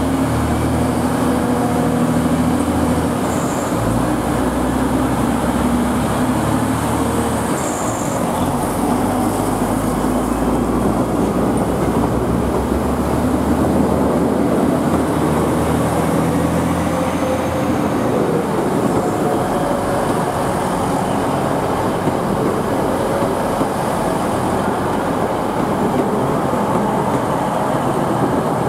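Class 185 diesel multiple unit pulling away from the platform: its underfloor diesel engines run under power, the engine note shifting a few times in the first eight seconds, then steady running and wheel noise on the rails as the carriages pass.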